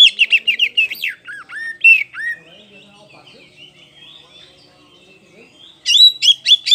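Oriental magpie-robin of the black-bellied kacer poci form singing. A fast run of sharp, repeated notes, each flicking up then dropping, gives way about a second in to a few lower slurred whistles. After a quieter stretch with soft warbling, another fast repeated run starts near the end.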